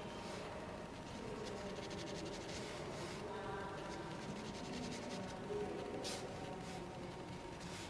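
Pencil sketching on fine-grain watercolour paper: faint, soft scratching strokes of the graphite, with one brief louder stroke about six seconds in.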